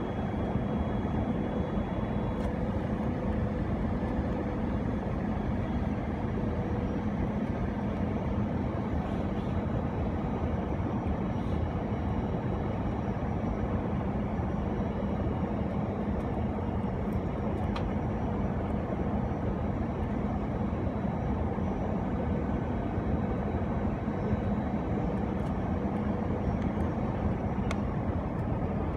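Steady cabin noise inside an Airbus A319 airliner on final approach: engine and airflow roar with a low steady hum and a fainter higher drone underneath.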